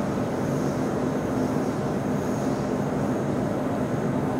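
Stockholm X10 electric commuter train standing still at a platform, heard from inside the carriage: a steady low hum from the stationary train with a faint high whine above it.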